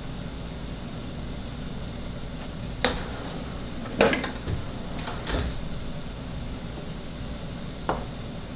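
A handful of short, sharp knocks and clatters of kitchen things being handled and set down on a stone countertop, the loudest about four seconds in. A steady low hum runs underneath.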